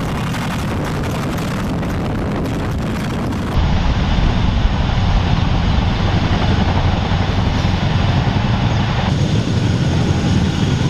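Large military helicopter running, its rotor beating fast and its turbines steady. The sound jumps louder about three and a half seconds in and changes again about nine seconds in, where clips are cut together.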